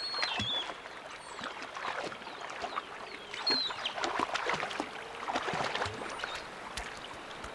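Water splashing and churning as giant otters and diving water birds hunt fish together in a river. A couple of short, high squeaky calls come through, one at the start and one about halfway.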